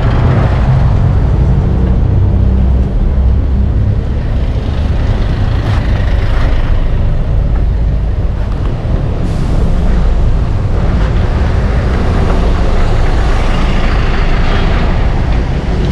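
Road traffic close alongside a moving bicycle: cars, a truck and a bus running, with a heavy, steady low rumble.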